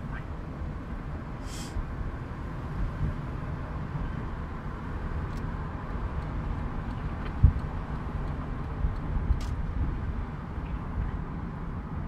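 Steady low road and engine rumble heard inside the cabin of a moving taxi, with a single sharp thump a little past halfway. Two brief hisses break in, one near the start and one near the end.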